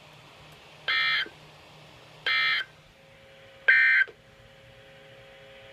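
Emergency Alert System end-of-message code on NOAA Weather Radio: three short electronic data bursts about a second apart, marking the close of the alert.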